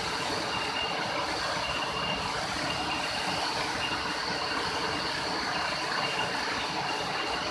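Waterfall: a steady rush of falling water. Over it, a short high note repeats about once a second.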